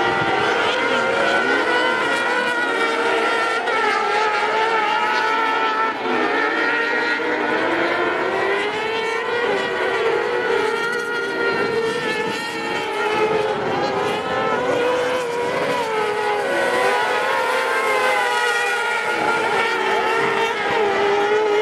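Several kartcross buggies racing, their high-revving motorcycle engines overlapping and rising and falling in pitch as they work around the dirt track.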